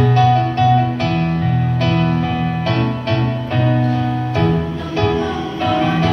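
Choir singing in sustained chords that shift every second or so.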